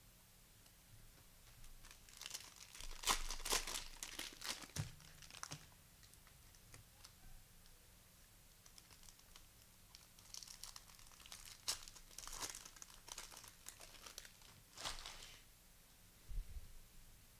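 Cellophane-wrapped cello pack of basketball trading cards being torn open and crinkled, in two spells of crackling a few seconds apart. A soft thump near the end.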